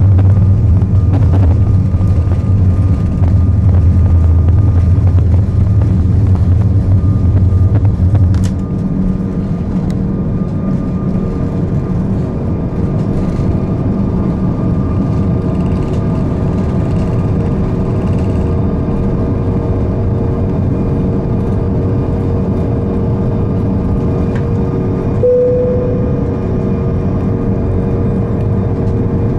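Cabin noise inside an Airbus A340-600 climbing after takeoff: steady engine and airflow noise with a strong low rumble that drops off suddenly about eight seconds in, leaving a lighter, even hum with faint steady tones. A brief tone sounds near the end.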